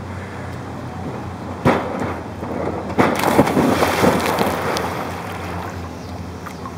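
A sharp knock from the springboard as a diver jumps, then about three seconds in a loud splash as he hits the pool, the spray dying away over a couple of seconds.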